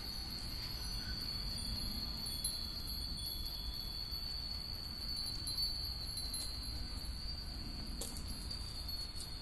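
Many Japanese wind bells (fūrin) hung along lines, tinkling together in the breeze. Their rings blend into a steady high shimmer, with an occasional sharper clink.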